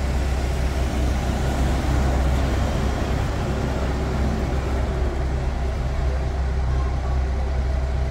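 Street traffic: a steady low engine drone with a minibus driving past close by.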